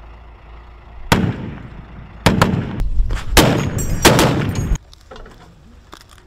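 Gunfire: a single sharp shot about a second in, then a rapid string of shots from about two seconds that cuts off abruptly near five seconds.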